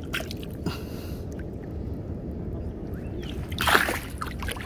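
Shallow water splashing and sloshing as a hand moves through it, with a few light splashes in the first second and a louder splash near the end, over a steady low rumble.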